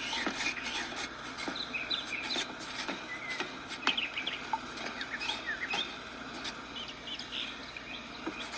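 Songbirds chirping and calling repeatedly, with scattered light clicks and knocks among them.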